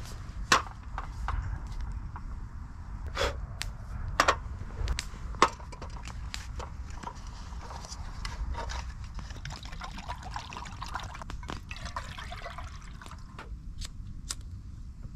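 Open wood fire crackling, with irregular sharp pops that are loudest in the first few seconds, over a low steady rumble.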